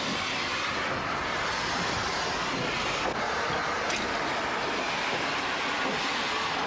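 Steam locomotive with steam up, giving off a steady hiss of escaping steam.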